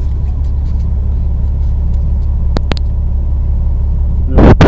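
Semi truck driving on the highway, a steady low rumble, with two light clicks about two and a half seconds in and a loud thump near the end.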